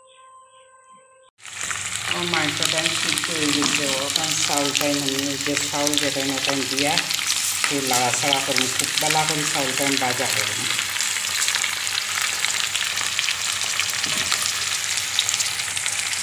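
Rice and mutton frying in hot oil in a nonstick pan. A steady sizzle with crackles sets in suddenly about a second and a half in, while a spatula stirs the raw rice into the meat to fry it for pulao. A voice is heard underneath from about two to ten seconds in.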